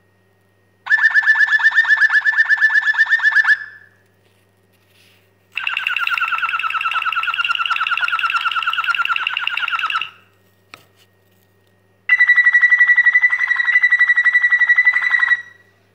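Waterslager (Malinois) canary singing the bellen tour: three phrases of rapid, bell-like repeated notes, the middle one the longest, with short pauses between. The tour is rated at six points.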